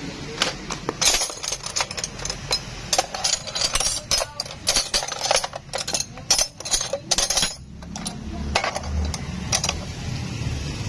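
Metal tools and parts clinking and clattering in quick, irregular knocks. A low rumble comes in about eight seconds in.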